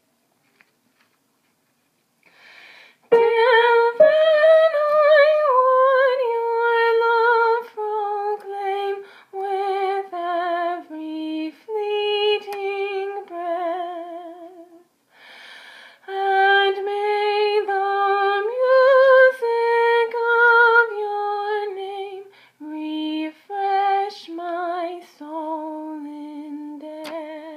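A woman singing a hymn tune alone and unaccompanied, on a wordless open vowel. It begins about three seconds in as a string of held, stepwise notes with a slight vibrato, in two long phrases with a breath between them about halfway through.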